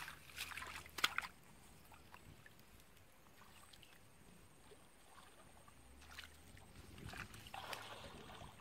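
Hands splashing and groping through shallow muddy water, in bursts at the start and again near the end, with a sharp click about a second in.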